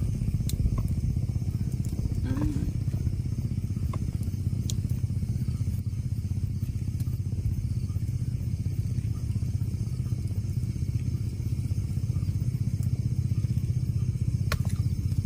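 A small engine running steadily at an even, low pitch.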